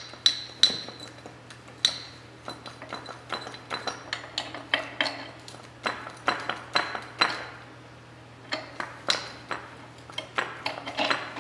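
Irregular metallic clinks, taps and knocks of hand tools against steel suspension parts, some with a short ringing tail, as a rear leaf spring and shackles are worked into place on an old Ford axle.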